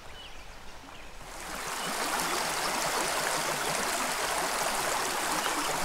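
Running water of a small creek rushing over riffles, a steady even hiss that swells up about a second and a half in and then holds steady.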